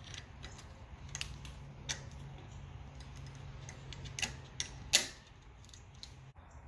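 A wrench loosening the cable anchor bolt on a bicycle's SunTour brake caliper: a few scattered metal clicks and taps, the loudest about five seconds in.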